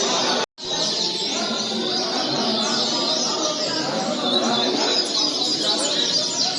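Many double-collared seedeaters (coleiros) singing at once, their fast chirping songs overlapping into a dense chorus. A brief dropout to silence about half a second in.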